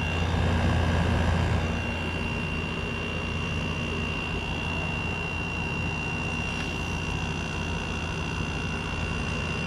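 Kool King window air conditioner running with its case off, just after its first startup of the season: a steady low compressor hum and blower fan whirring, with a thin steady high tone over it. It sounds smooth and healthy.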